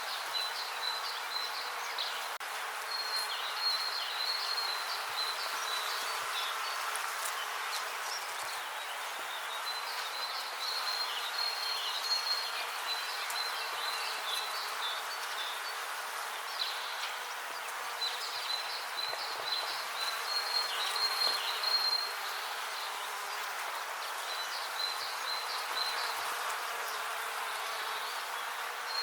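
Bees buzzing steadily in a dense, continuous hum, with phrases of short high chirps coming back every few seconds over it.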